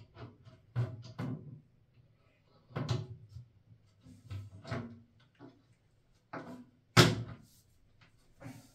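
Knocks and clatter of a toilet seat and its fixings being handled and fitted on a ceramic toilet bowl, a dozen or so separate knocks with one sharp, loud knock about seven seconds in.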